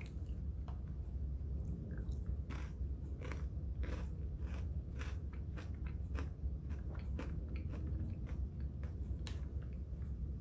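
Close-up chewing of a Reese's Dipped Pretzel, a chocolate- and peanut-butter-coated pretzel, with irregular crisp crunches throughout over a steady low hum.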